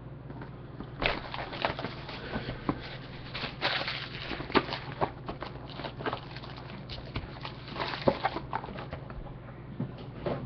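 A cardboard trading-card box being slid open and handled, with its foil-wrapped pack set down on the desk: scattered rustles, scrapes and light taps.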